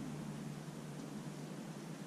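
Steady outdoor background noise, a low rumble under a soft hiss, with no shot or pellet impact heard.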